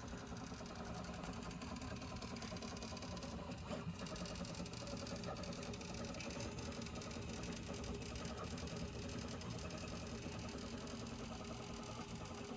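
Prusa 3D printer printing infill: the stepper motors and print head give a steady, fast buzzing chatter, louder than the printer normally runs, with one brief click a little under four seconds in. The owner cannot say whether this noise is normal or a fault.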